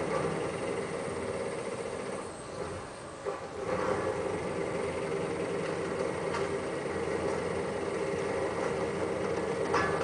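Excavator's diesel engine and hydraulics working under load as its NPK crusher attachment grips and breaks concrete rubble. The machine note eases off about three seconds in, then picks up again, and concrete cracks sharply near the end.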